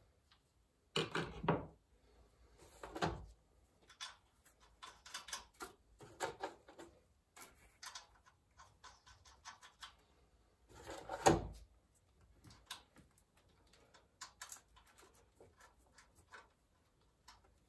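Tools and metal parts being handled during engine disassembly: scattered clicks and knocks, with louder clunks about a second in, around three seconds in and about eleven seconds in.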